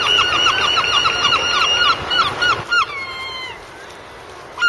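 Gull calling: a rapid run of short, loud, repeated notes, about five a second, that ends a little under three seconds in with a couple of longer, falling notes, as in a gull's long call. One more short call comes near the end.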